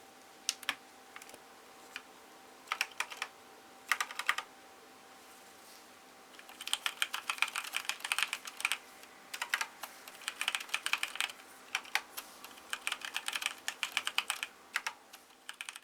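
Typing on a mechanical keyboard: a few single key presses and short bursts at first, then fast continuous typing runs in several bursts from about six seconds in.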